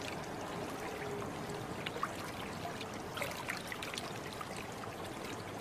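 Quiet, steady trickling and lapping of river water stirred by a swimming beaver, with faint scattered ticks.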